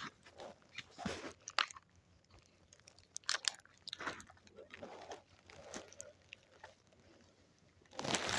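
Footsteps crunching and rustling through dry leaves and twigs on a forest floor, irregular steps with quieter pauses between them, growing louder and denser near the end.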